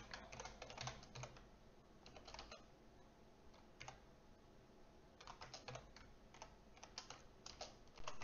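Faint computer-keyboard typing: short runs of key clicks with pauses between them, the longest run in the second half.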